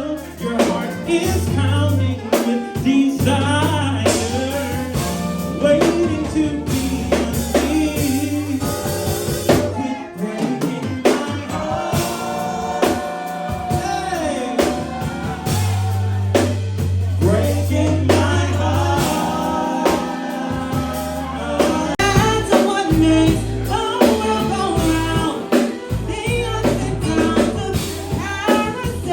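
A song with a singing voice over a bass line and a drum kit.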